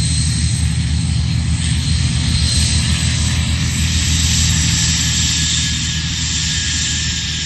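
Fiat G.46 propeller trainers with Alfa Romeo 115 piston engines at take-off power: a steady engine drone that grows a little fainter over the last couple of seconds as the aircraft climb away.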